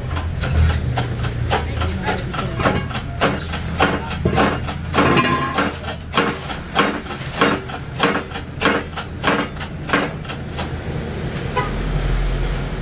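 Metal being hammered: a steady run of sharp, ringing blows, about two a second, which stops about ten seconds in. A low rumble runs underneath.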